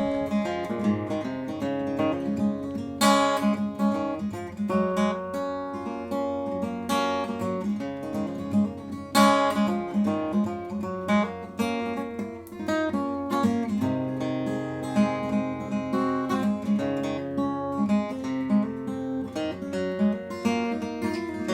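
Background music: acoustic guitar, plucked and strummed, with a steady rhythm.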